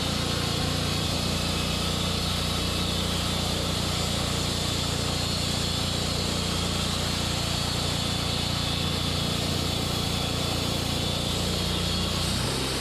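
Band sawmill running steadily, its engine held at an even speed as the blade works through an ash cant.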